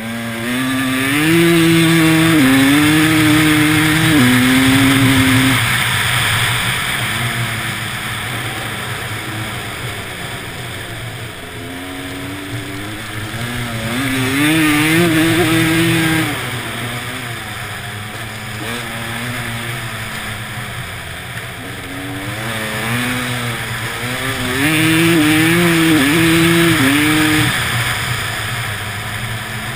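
Motorcycle engine on an ice track, revving hard three times with its pitch stepping up and down through the gears, easing off between the pulls.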